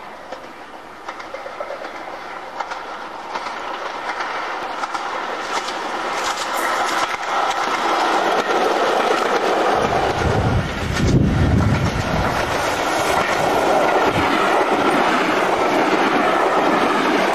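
Passenger train approaching and passing close by, growing louder as it nears, its wheels clacking over the rail joints. A deep rumble joins in about ten seconds in as the coaches go past.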